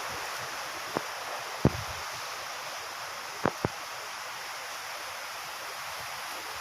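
Steady wind noise with a few short sharp clicks, two of them close together about three and a half seconds in.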